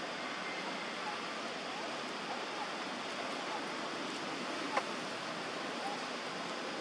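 Steady hiss of outdoor background noise, with a few faint short chirps and a single sharp click about five seconds in.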